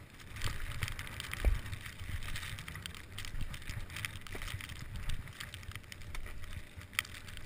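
Skis sliding and scraping over packed snow at slow speed, with a few knocks, the sharpest near the end.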